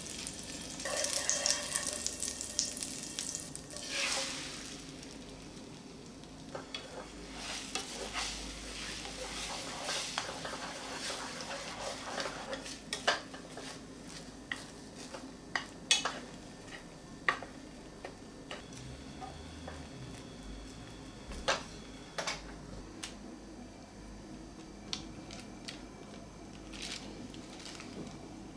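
Butter and egg sizzling in a nonstick frying pan, loudest in the first few seconds and then fading to a quieter hiss. Later, wooden chopsticks stir and scrape the setting eggs, with sharp clicks and taps against the pan.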